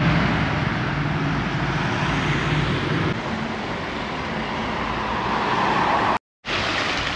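Street traffic: a motor vehicle's engine running close by, with road noise, growing louder just before it cuts off suddenly about six seconds in; it resumes after a brief gap of silence.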